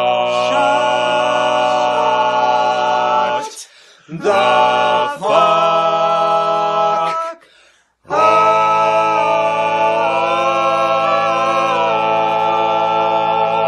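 Voices singing a cappella in long, held chords, in three phrases broken by short pauses about three and a half and seven and a half seconds in.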